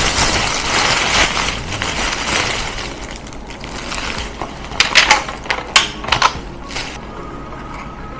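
Thin clear plastic carrier bag rustling and crackling as it is pulled open and unpacked, loudest over the first three seconds. A few sharp crackles come about five to six seconds in as small tied plastic packets are handled.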